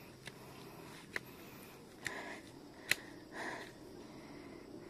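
Footsteps climbing concrete steps, a sharp tap about once a second, with two heavy breaths from the tired climber about two and three and a half seconds in.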